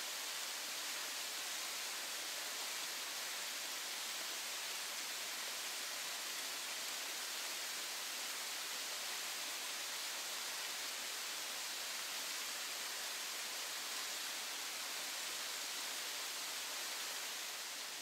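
Waterfall in full flow pouring down a rock face into a pool: a steady, even hiss of falling water.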